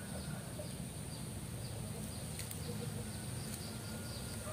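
Quiet outdoor background: a steady low rumble under a rapid run of faint high chirps. A couple of light clicks come from plastic toy trains being set on the track.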